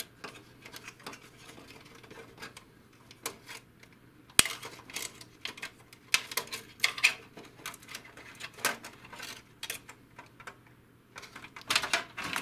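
Light plastic clicks, taps and scrapes from the white plastic housing of an HP DeskJet 2130 printer as the sensor wire is pulled out of its routing clips, with one sharp click about four and a half seconds in. A quick cluster of knocks and rustles comes near the end as the housing is turned over.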